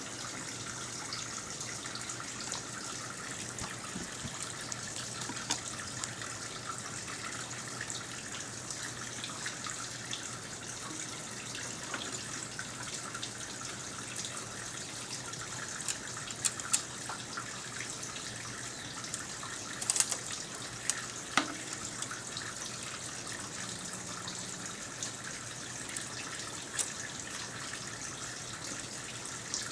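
Steady running water, like a tap left running, with a few sharp clinks clustered about two-thirds of the way through.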